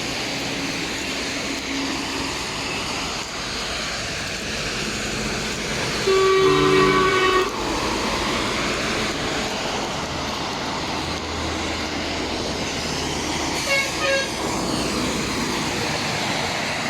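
A vehicle horn held for about a second and a half, about six seconds in, sounded as the drivers' customary salute; two short toots follow near the end, over steady road and traffic noise.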